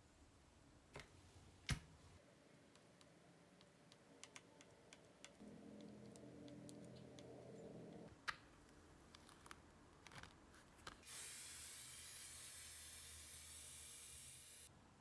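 Faint handwork at a table: scattered light clicks and taps. A low steady hum runs for about two and a half seconds midway. Later comes a steady hiss of about four seconds that cuts off suddenly.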